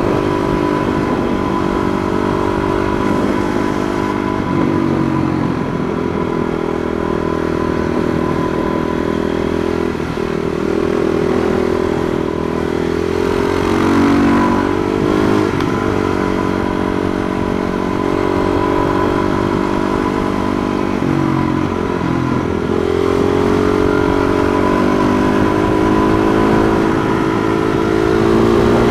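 Husqvarna SMR 510 supermoto's single-cylinder engine heard from on board while riding. Its note repeatedly climbs under throttle and drops back on gear shifts and corner entries.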